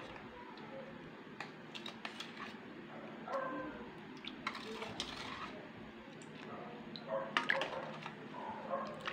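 Metal spoon stirring a thick creamy mixture with gelatin cubes in a stainless steel bowl: wet scraping and clinks of the spoon against the metal. Short high-pitched whines come twice, about three seconds in and again about seven seconds in.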